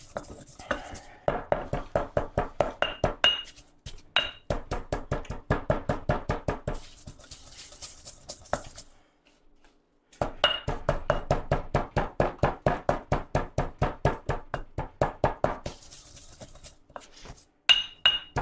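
Granite mortar and pestle pounding dried chilies and spices into a curry paste: quick, even stone-on-stone knocks about six a second, in two long runs with a pause of about a second and a half in the middle.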